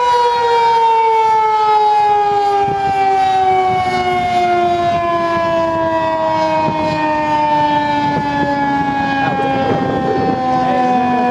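Federal Signal 2001 outdoor warning siren winding down: its chord of several tones slides slowly and steadily lower in pitch as the rotor loses speed.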